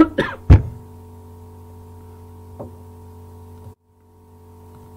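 A single sharp knock with a deep thud about half a second in, over a steady low electrical hum; the hum cuts out abruptly a little before four seconds in and fades back.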